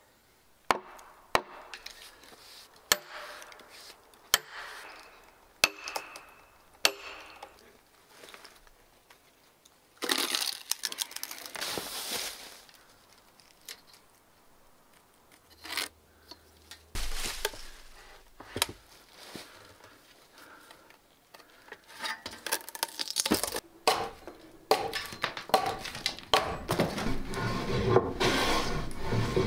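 An axe chopping into a log, with six sharp strikes spread over the first seven seconds. Later a hand plane shaves along a wooden beam in quick repeated strokes, growing denser and louder near the end.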